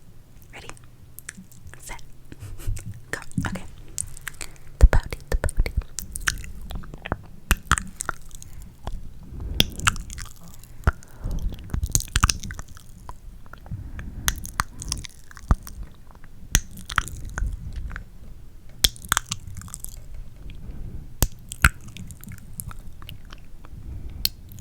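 Close-miked ASMR mouth sounds: irregular wet clicks and smacks of the lips and tongue, several a second.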